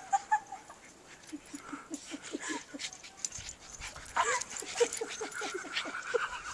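Dogs at play giving runs of quick, short yips and whines, about six a second, one run in the first half and another starting about four seconds in.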